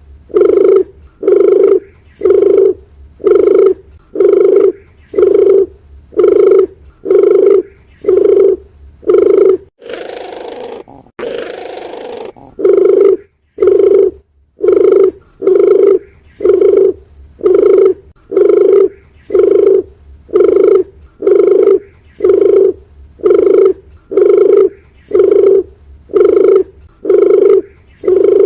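Dove cooing: short, loud coos repeated at an even pace of about one every 0.7 seconds. They break off a little under halfway through for about three seconds of hiss, then carry on at the same pace.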